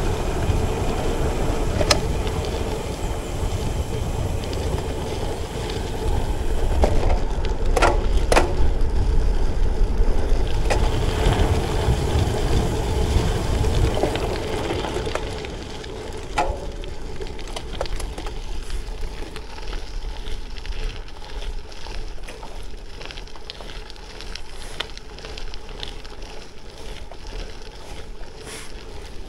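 Wind rushing and buffeting over a handlebar-mounted action camera's microphone, with the tyres of a gravel bike rolling on the road during a descent. A few sharp clicks come around eight seconds in, and the rush eases about halfway through.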